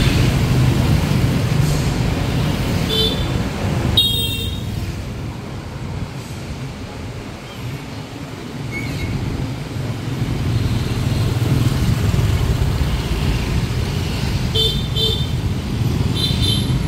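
Busy street traffic dominated by motorbike and scooter engines running, with short horn toots: one about three seconds in, and quick pairs of toots near the end.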